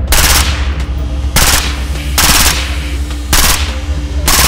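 Suppressed full-auto 5.56 AR-15 rifle firing five short bursts about a second apart, over dubstep music with a steady deep bass.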